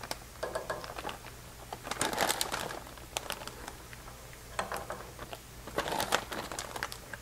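Shredded hash browns being scooped with a plastic measuring cup and dropped into a metal muffin tin: about four short bursts of rustling with light clicks and taps.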